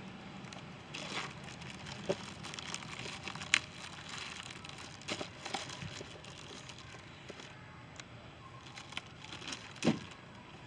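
A plastic bag crinkling and rustling as carrots are dug out of it by hand, with a few sharp knocks, the loudest about three and a half seconds in and another near the end.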